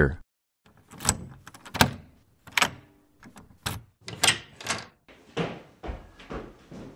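Footsteps sound effect: hard-soled shoes stepping on a hard floor, a string of separate thuds about one to two a second.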